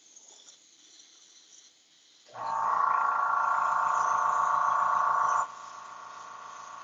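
A small electric motor switches on about two seconds in with a steady hum. It is loud for about three seconds, then drops suddenly to a quieter level and keeps running.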